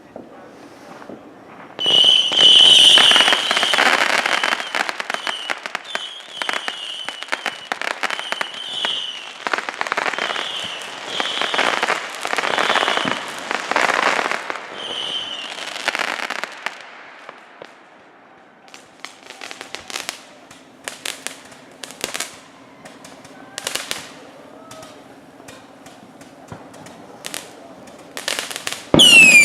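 Consumer fireworks going off. About two seconds in, a dense volley of crackling and popping starts, with a high tone repeating through it, and dies away around sixteen seconds. It is followed by a string of separate sharp bangs, and near the end a loud whistle that falls in pitch.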